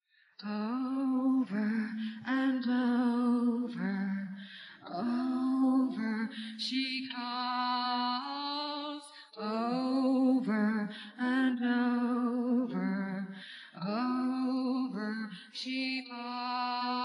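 A solo female voice singing a slow melody in phrases, with vibrato on the held notes. It is an isolated lead-vocal track with no instruments. It comes in about half a second in.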